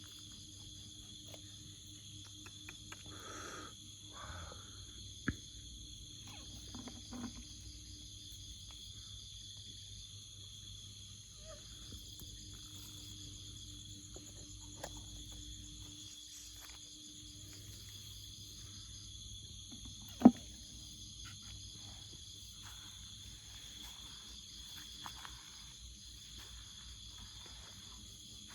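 Steady chorus of insects trilling in several high pitches, with scattered short rustles and clicks and one sharp, loud click about two-thirds of the way through.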